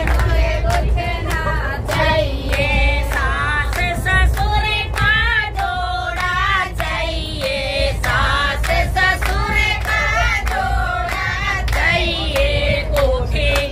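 A group of people singing a devotional bhajan together and clapping their hands to the beat, about two claps a second, over a steady low rumble from the moving train.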